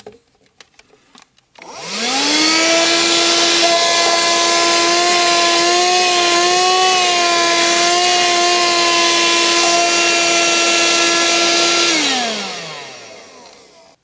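KEYNICE KN-108W 80 W handheld car vacuum, its 12 V motor switched on after a few clicks: it spins up with a rising whine, then runs steadily with a high whine and rushing air. About twelve seconds in it is switched off and winds down with a falling whine.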